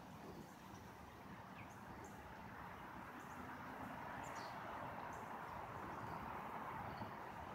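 Outdoor background: a steady hiss that grows slightly louder, with a few faint, brief high bird chirps.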